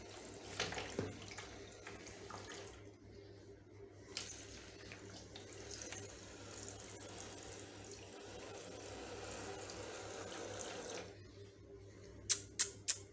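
Handheld shower spray running onto a wet rabbit's fur and into a basin of water. The spray briefly dips about three seconds in and stops shortly before the end, leaving a few sharp clicks.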